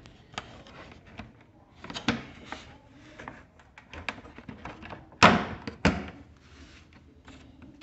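Plastic body panels of an electric scooter's front fairing being handled and pried at, giving scattered light clicks and hollow knocks, with two sharper knocks about five and six seconds in.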